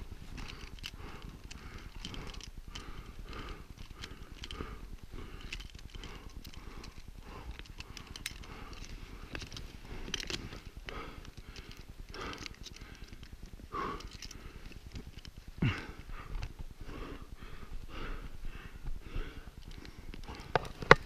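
A man breathing hard and fast in short, rhythmic breaths, about one to two a second, with a single louder knock about three-quarters of the way through.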